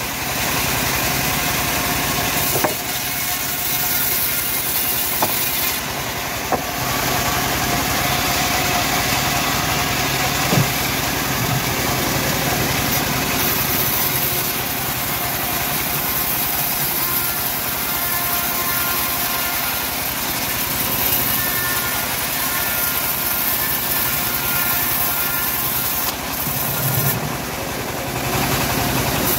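Homemade band sawmill running steadily while teak is sawn into boards, with a few sharp knocks as timber is handled on the carriage.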